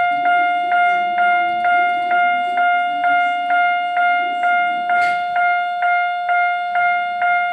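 Electronic warning bell of a model Japanese railway level crossing ringing its repeated 'kan-kan' ding at an even pace of a little over two strokes a second.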